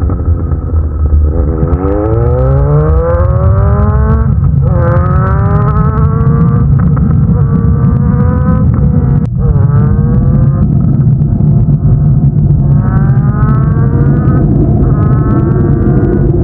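Suzuki GSX-S750's inline-four engine through a Black Widow slip-on exhaust, pulling up through the revs with its pitch climbing steadily. The pitch drops sharply about four and nine seconds in, then climbs again.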